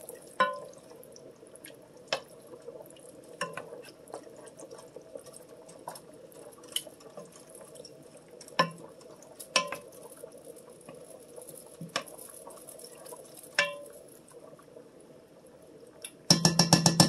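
Wooden spoon stirring a thick chicken, corn and tomato mixture in an enamel Dutch oven, with scattered knocks of the spoon against the pot about once a second. Near the end comes a quick, loud run of taps.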